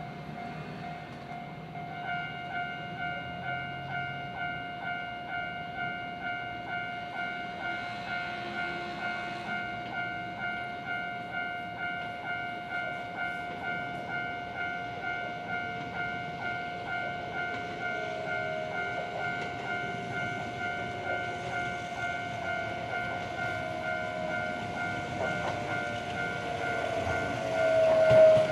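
Railway level-crossing warning bell clanging about twice a second as a Kintetsu train approaches. The train grows louder toward the end as it draws into the station, and is loudest just before the end.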